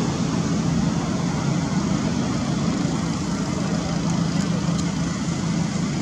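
Steady low rumbling noise with a faint hum, unchanging throughout.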